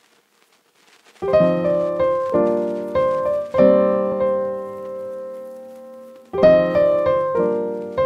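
Background piano music. Chords come in about a second in and are struck every second or so; one chord in the middle is held and fades for nearly three seconds.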